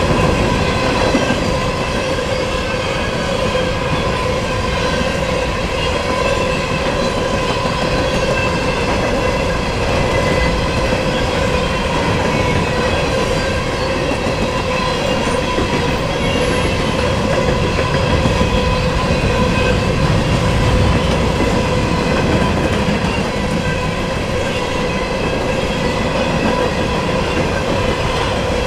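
Freight train of covered hopper cars rolling past at speed: a steady rumble of wheels on rail, swelling a little about two-thirds through, with a high ringing tone held over it.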